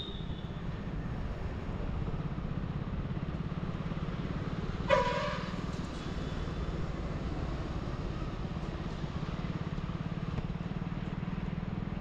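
Motorcycle engine running steadily while riding. A vehicle horn gives one short honk about five seconds in.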